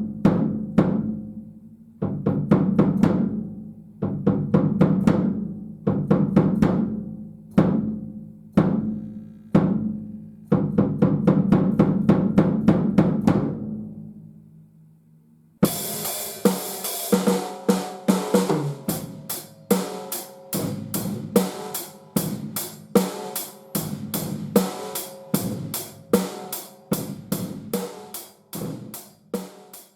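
TAMA Club-JAM compact drum kit: in the first half the drums are struck one or a few at a time, each hit ringing out with a low tone, the last one fading away about halfway through. Then the full kit starts a busy groove with cymbals, snare and bass drum.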